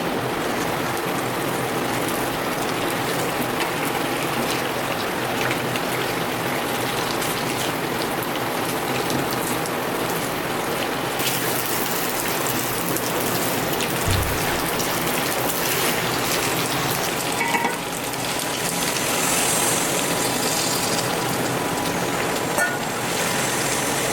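Food frying in oil in a cast iron kadhai, a steady sizzle like rain, with a low thump about fourteen seconds in.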